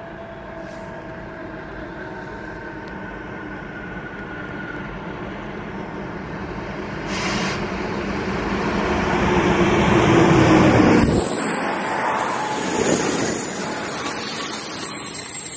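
ČD class 460 electric multiple unit arriving and slowing into the stop, its running noise growing steadily louder as it approaches. Its low rumble cuts off sharply about eleven seconds in, and a high squeal near the end fits its brakes bringing it to a stop.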